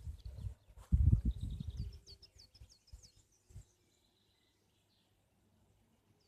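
Low rumbling noise on the microphone, loudest about a second in, then a small bird sings a quick run of high chirps; after that it is almost quiet.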